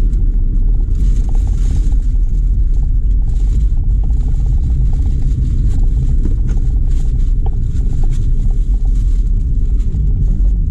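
Steady low rumble of a Proton Exora 1.6's engine and tyres, heard from inside the car's cabin while it drives slowly.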